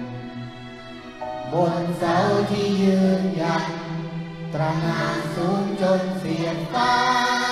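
A man singing a slow song into a microphone in long held notes, accompanied by a youth string orchestra.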